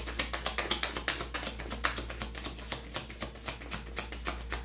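Tarot cards being shuffled by hand: a rapid, uneven run of light clicks and slaps, several a second.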